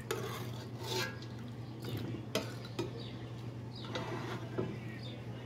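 Kitchen utensil handling: a few scattered clinks and knocks of a spoon against a pot and a plastic blender jar as cooked tomatoes are spooned in. A steady low hum runs underneath.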